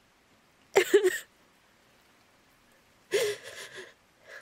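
A woman crying: gasping, shaky sobbing breaths with small whimpering catches in the voice, in two bouts, about a second in and again from about three seconds to the end.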